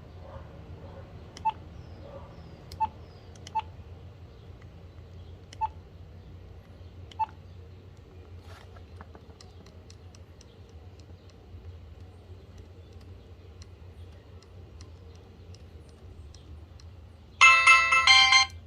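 BlackBerry Curve 8520 being operated: five sharp clicks, each with a brief beep, in the first seven seconds, then faint ticking. Near the end a loud, bright ringtone starts playing from the phone's speaker for about a second, over a low steady hum.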